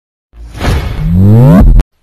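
Whoosh sound effect for an animated logo reveal: a rush that swells up with a rising swoop in pitch, then cuts off suddenly near the end.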